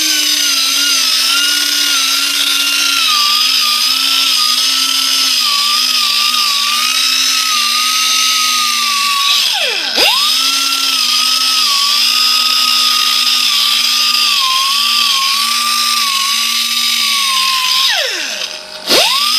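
Air-powered sander driven by an air compressor, running with a high whine and a strong hiss of air, sanding calluses off feet; its pitch wavers as it works. It winds down and restarts about halfway through, and stops and starts again near the end.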